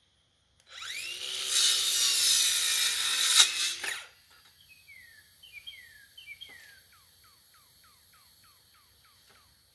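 A handheld power tool spins up and runs on wood for about three seconds, then stops. Afterwards a quick series of short, falling chirps carries on.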